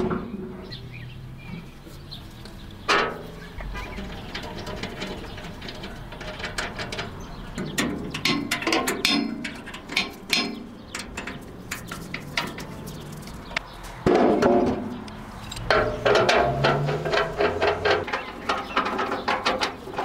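Metal clinks, clicks and knocks from hand-tool work on a bandsaw's steel frame as bolts are tightened and parts fitted, coming in clusters, busiest about halfway through and again over the last few seconds.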